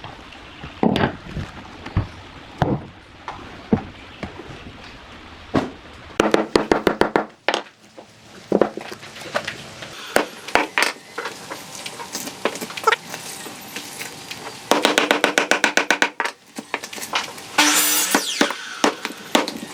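Hand-tool blows on wood: scattered single strikes, then two quick runs of rapid, ringing taps, with a short scraping hiss near the end.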